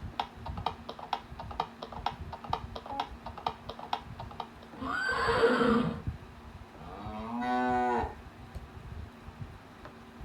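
Sampled sound effects from a Yamaha PSS-51 keyboard's effect pads: horse hooves clip-clopping at about four to five a second, then a horse whinny about halfway through, and a cow mooing a couple of seconds later.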